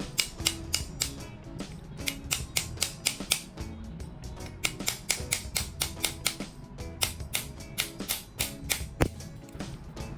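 Quick, irregular sharp clicks or taps, about three or four a second, over background music, with the loudest one near the end.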